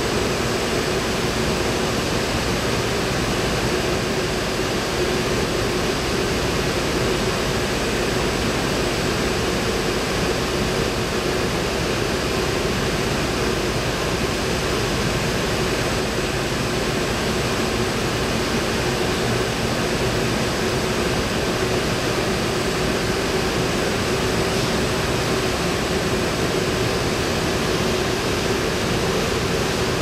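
SKP PR 5000 VG marquee-fabric washing machine running: a steady, even rush of noise with a constant hum and a faint high whine.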